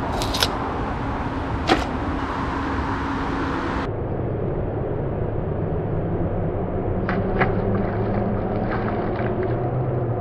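Steady traffic rumble with a low hum. There are a couple of sharp clicks in the first two seconds, and about seven seconds in a few quick sharp splashes as a released bluegill drops into the shallow canal.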